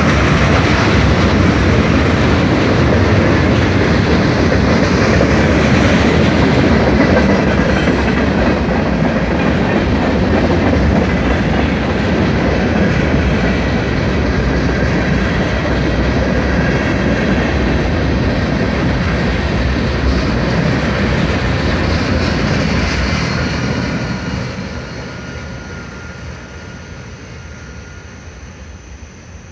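Freight cars of a mixed manifest train rolling past close by, steel wheels running on the rails. The noise fades away about three quarters of the way through as the end of the train moves off.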